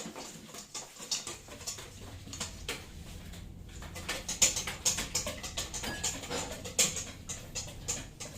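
A spoon or whisk stirring pancake batter in a bowl, with quick, irregular clicks and scrapes against the bowl.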